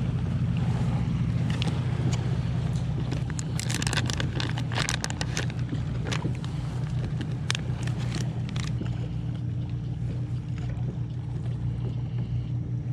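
Crinkling and crackling of a plastic soft-bait package as it is handled and opened, a few seconds in and lasting several seconds. Under it runs a steady low hum.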